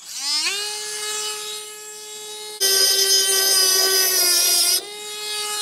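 Dremel rotary tool with a burr spinning up to a steady high whine, then grinding into the tailgate handle for about two seconds in the middle, louder and harsher, before running free again. The burr is cutting a starting dimple so the drill bit will stay centred.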